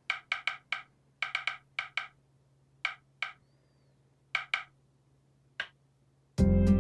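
About fourteen short, hollow, wood-block-like taps in irregular clusters of one to four over a faint low hum. Acoustic guitar music comes in near the end.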